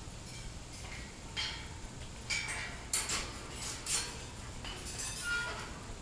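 Light metallic clinks and rattles on a wire birdcage, a handful of sharp clinks spread over a few seconds, the loudest about three seconds in.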